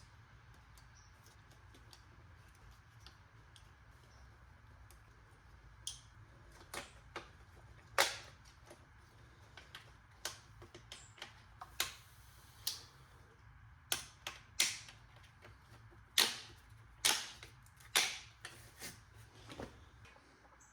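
Irregular sharp clicks and knocks, about fifteen spread over the second half, of parts and tools being handled in the engine bay during reassembly after a coil pack swap.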